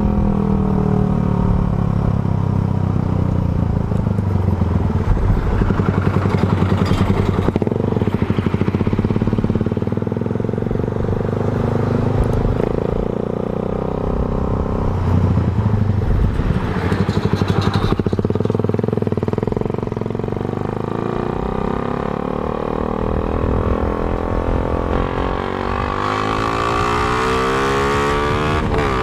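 Suzuki Raider 150's carburetted single-cylinder engine through an open HGM exhaust pipe, ridden hard with the throttle opened right up: the revs rise and fall repeatedly and climb steeply near the end.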